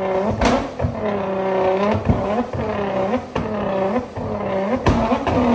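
Nissan GT-R's twin-turbo V6 revved over and over, its pitch dropping and climbing about once a second, with sharp exhaust bangs between the revs from a tune built to spit flames.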